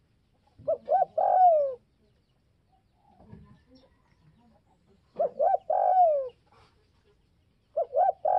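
Spotted dove cooing its song three times, about every three seconds: two short coos followed by a longer coo that falls in pitch. The last phrase is still sounding at the end.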